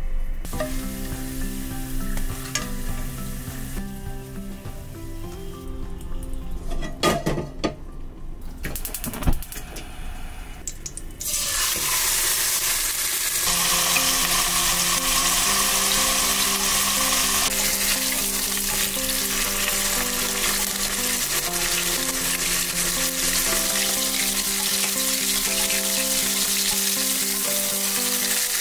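Garlic slices frying quietly in oil, with a few knocks of handling; about a third of the way in, a ribeye steak goes into the hot oiled nonstick pan and sizzles loudly and steadily, and it is flipped near the end.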